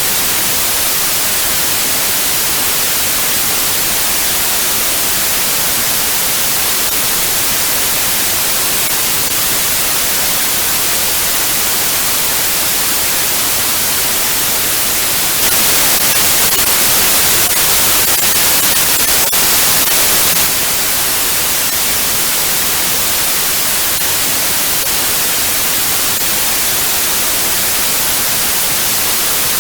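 Steady white-noise hiss, strongest in the high end. Past the middle it turns a little louder and brighter for about five seconds, then settles back.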